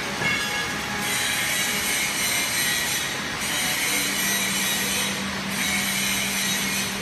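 Automatic bottle filling line running: conveyor chains, filling heads and a rotary bottle turntable make a steady mechanical clatter and hiss. The hiss dips briefly every two seconds or so, and a steady low hum comes in about four seconds in.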